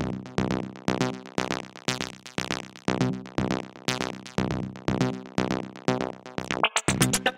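Electronic background music: synthesizer chords pulsing in a steady beat. Near the end it drops out briefly and comes back busier and brighter.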